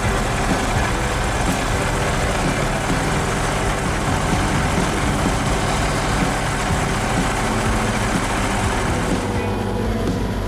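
Snow groomer's diesel engine running steadily, with a dense hiss over it that thins out near the end.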